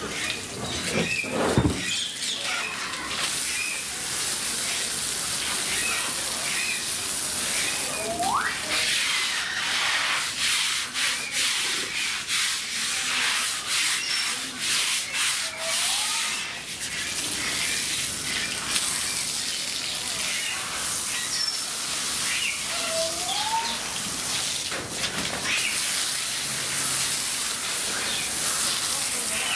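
Water from a garden hose spraying onto a concrete enclosure floor, a steady hiss. A loud low knock comes about a second and a half in, and three short rising chirps are heard spread across the middle.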